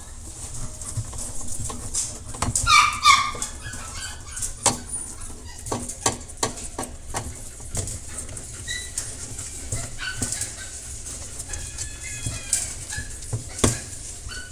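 Nursing English Cocker Spaniel puppies squeaking and whimpering, with a quick run of high squeals about three seconds in and a fainter squeal near the end. Scattered soft clicks and shuffling sounds come from the pups squirming together.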